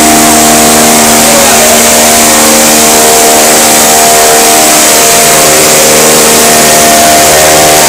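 Puffed-food production line machinery running: a loud, steady mechanical noise with several humming motor tones and a constant hiss over it.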